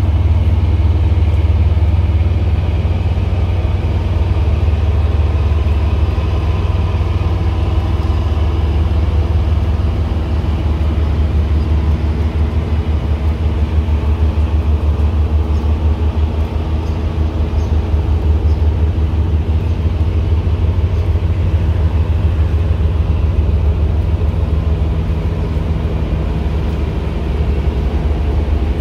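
A boat engine running steadily: a loud, low drone with a hum of higher engine tones over it, easing slightly midway.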